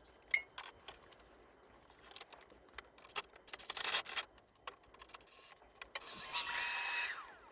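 Light clicks and knocks of tools being handled, then about six seconds in a power tool motor runs for about a second and a half, its pitch shifting, and stops.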